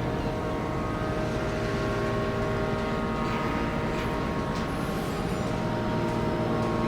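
Cruise ship horn sounding long held notes, several pitches at once, that change every few seconds as it plays a tune, over a steady background hiss.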